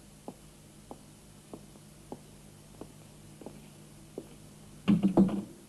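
Footsteps on a hard floor, seven even steps at walking pace, then a louder clatter of knocks near the end.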